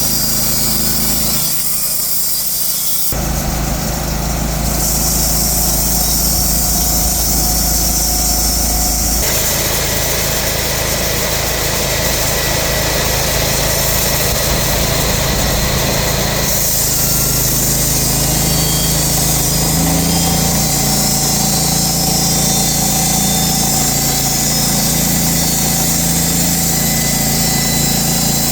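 TTP 600 mobile sawmill running under power, its engine and saw making a steady mechanical drone while working a large log. The sound changes abruptly several times.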